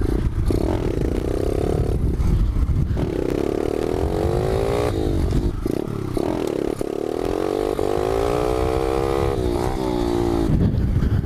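Pit bike engine revving up and dropping back during wheelie practice, with one long steady climb in pitch over about three seconds before it falls away near the end. Wind rumbles on the helmet camera's microphone.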